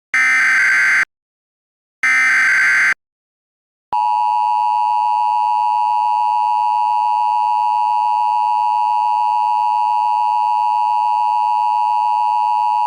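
Emergency Alert System tones: two short bursts of SAME header data, each about a second long with a second's gap, then the steady two-tone EAS attention signal from about four seconds in. The attention signal announces an emergency message about to be read.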